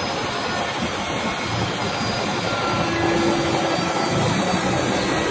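Handheld electric router running at speed, its bit cutting into a carved wooden panel: a steady motor whine mixed with cutting noise, a little louder in the second half.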